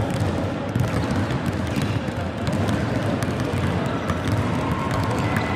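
Several minibasket balls being dribbled at once on a wooden sports-hall floor: a dense, irregular patter of overlapping bounces.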